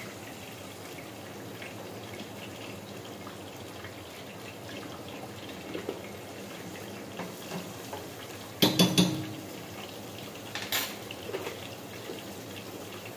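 Sliced onions sizzling steadily in hot oil in a cooking pot, just added for frying. About nine seconds in comes a quick run of sharp metal clinks from a spoon and cookware, and a single clink follows a couple of seconds later.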